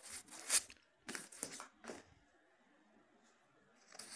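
Paper rustling and crinkling as a book's pages are handled and turned: several short bursts in the first two seconds, a pause, then more rustling near the end.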